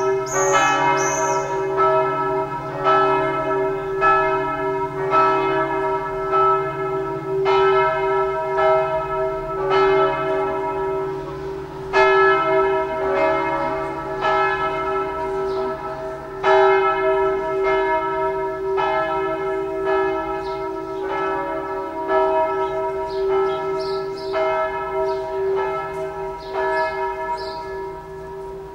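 Church bells ringing in a peal, their strokes falling about once a second at uneven intervals over the steady hum of the bells still sounding.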